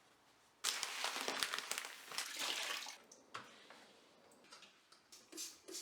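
Water running in a rush that starts suddenly about half a second in and stops after a little over two seconds, followed by a few faint light knocks near the end.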